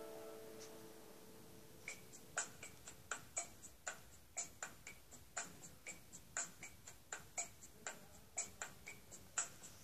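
A guitar chord rings out and fades, then a metronome starts ticking about two seconds in, steadily, with a stronger click once a second and lighter clicks between.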